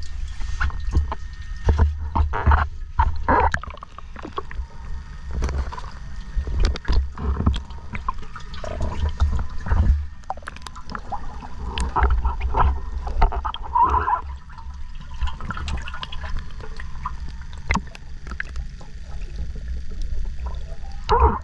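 Water gurgling and bubbling under water, with a constant uneven low rumble and many scattered clicks.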